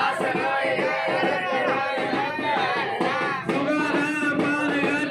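A song: a singing voice with instrumental accompaniment, over a steady held note.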